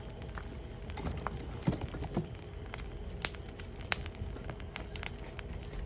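Split firewood burning, with irregular crackles and snaps over a low rumble of the flames; the sharpest pop comes a little past halfway, another just under a second later.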